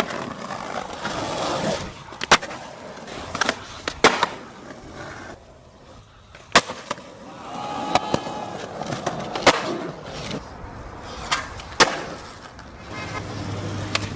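Skateboard wheels rolling, with sharp clacks of the board popping and landing, seven or so spread across the stretch.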